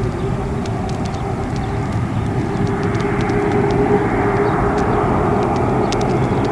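Twin-engine jet airliner at takeoff thrust, accelerating down the runway away from the listener. A steady jet rumble with a droning tone grows a little louder about halfway through.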